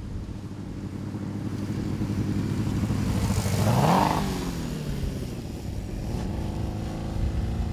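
Compressed-natural-gas-fuelled student Formula-style race car driving by. Its engine runs steadily, climbs in pitch as it closes in, is loudest as it passes close about four seconds in, then drops in pitch and goes on steadily as it moves away.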